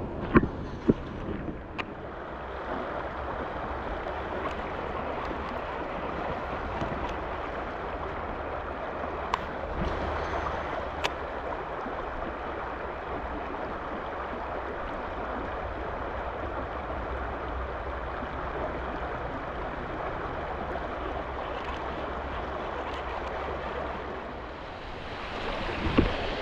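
Steady rushing of a flowing stream, with a few sharp clicks near the start and again about ten seconds in.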